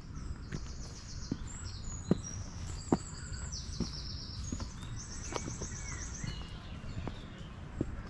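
Songbirds singing in quick trills of rapidly repeated high notes, several phrases in a row, over footsteps on a dirt forest path strewn with roots and stones. The steps come about once every 0.8 seconds, two sharp ones near the middle louder than the rest, with a low steady rumble underneath.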